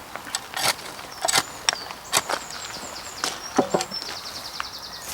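Secateurs snipping flower stems off a freshly replanted alpine plant: a series of sharp, separate snaps, about eight of them.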